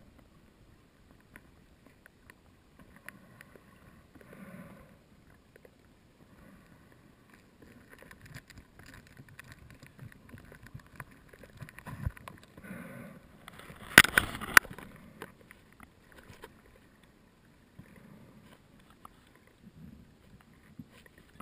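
A scuba diver breathing through a regulator underwater: bursts of exhaled bubbles come every four to five seconds, the strongest about fourteen seconds in, with faint clicks between.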